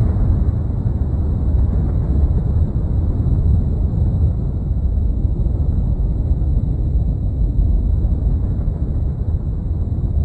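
Steady, deep rumbling noise with no clear pitch, a dramatic rumble on a film soundtrack.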